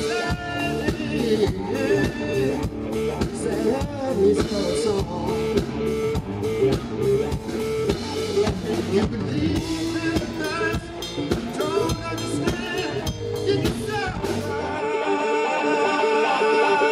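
Live band music: a slide lap steel guitar solo with gliding notes over drums and bass. About fifteen seconds in the drums and bass drop out, leaving the guitar's higher held notes.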